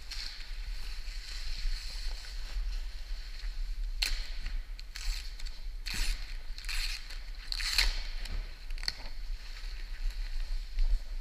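Rustling and crinkling of a car's white protective transport wrap and clear protective film being pulled off and bunched up by hand. The rustles come in a run of short, sharp bursts over the middle of the stretch, over a steady hiss and a low hum.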